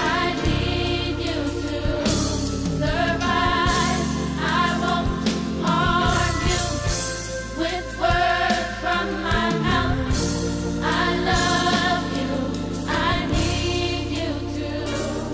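Gospel music: a choir singing over a steady bass line.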